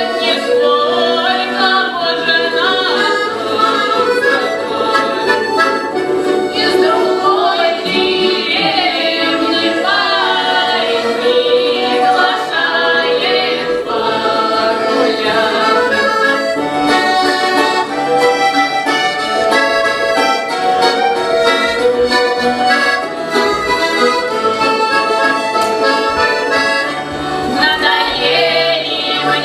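Russian folk music: an accordion playing, with a group of women singing along in the Voronezh village style.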